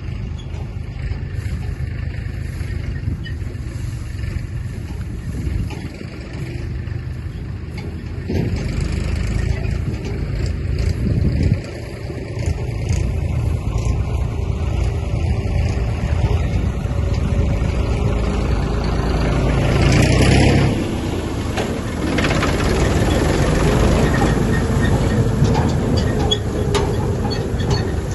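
Combine harvester's engine running steadily, growing louder about twenty seconds in.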